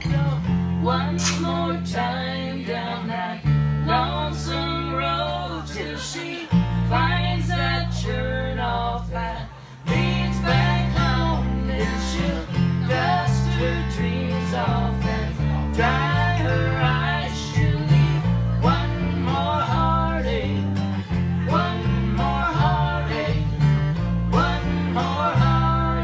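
A live band playing an instrumental passage: strummed acoustic guitar over a steady bass line, with a lead melody line above. The music dips briefly about ten seconds in, then carries on.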